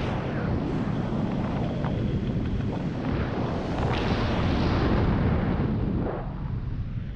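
Wind rushing over a camera microphone in paramotor flight: a heavy, low rush that swells and eases in gusts, loudest about four to five seconds in.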